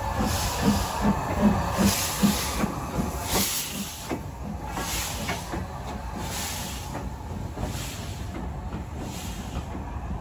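Steam locomotive working past with loud, regular exhaust chuffs that fade after about four seconds. The low rumble of the train running on the rails continues underneath.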